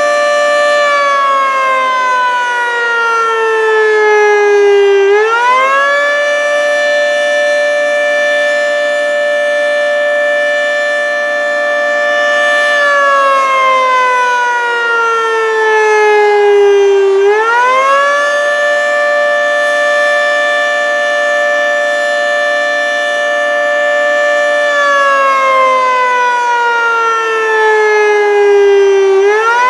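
Federal Signal 3T22A three-tone outdoor warning siren sounding a wail: a loud chord of several tones held steady for about six seconds, then sliding down together for about four seconds and sweeping quickly back up. The cycle repeats about every twelve seconds, two and a half times.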